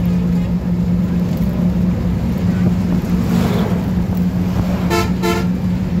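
Steady hum and road noise of a vehicle driving across a bridge, with another vehicle rushing past about three seconds in. Near the end a vehicle horn gives two short toots in quick succession.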